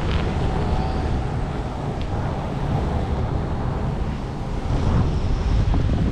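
Wind buffeting the microphone on a moving bicycle: a steady low rumble.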